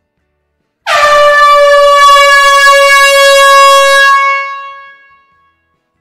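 Air horn giving one long, loud, steady blast that starts abruptly about a second in and fades away over about a second, echoing in a closed hall.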